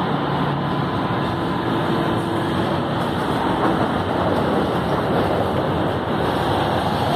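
São Paulo Metro train standing at a station platform, its onboard equipment running with a loud, steady noise and a few faint hums. The doors close partway through.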